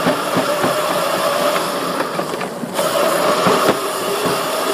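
Razor electric dirt bike's motor whining steadily as it is ridden, with scattered clicks and knocks over the ground. The whine drops off briefly about two and a half seconds in, then picks up again.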